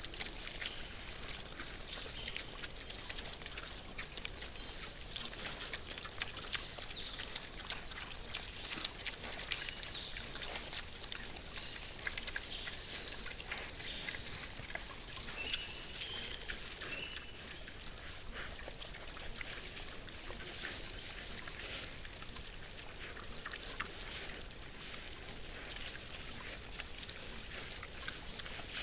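Wild boars feeding: a dense, continuous run of small crackling and crunching clicks.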